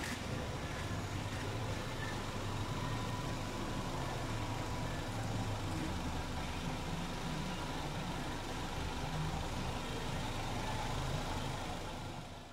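Proton Waja's four-cylinder Mitsubishi petrol engine idling steadily, freshly top-overhauled with new piston rings; it fades out near the end.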